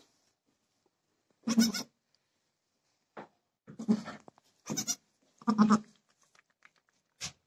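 Dwarf goats bleating: one bleat about a second and a half in, then three more close together between about four and six seconds in.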